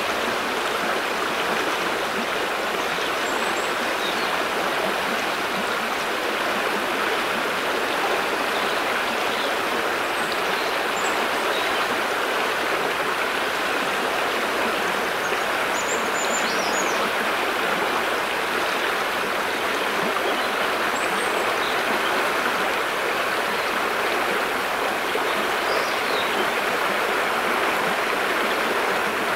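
Fast-flowing river rushing over shallows and around fallen branches: a steady, full rush of water. A few faint, short high bird chirps come through it now and then.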